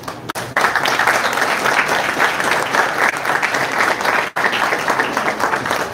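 Audience applauding: many hands clapping in a dense, steady patter that starts about half a second in.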